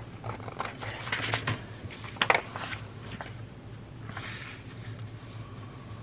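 Scissors trimming the edge of a paper envelope, a few short, sharp snips in the first couple of seconds, then the paper being handled and rustling on the mat.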